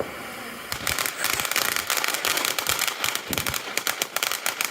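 A close firework going off in a rapid, continuous string of sharp crackling pops, starting under a second in.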